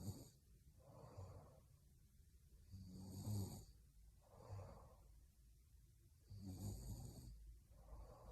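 A young woman snoring faintly in her sleep: three snores about three seconds apart, each followed by a softer breath.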